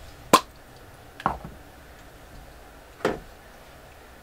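Three sharp clicks and knocks of makeup items and a plastic bottle being picked up and handled on a tabletop, the first the loudest.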